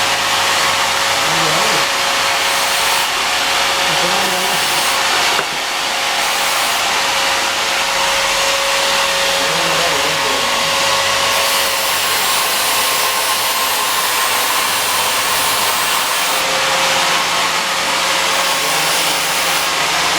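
Arc welding in progress: a steady, loud hiss with a constant hum beneath, dipping briefly about five seconds in.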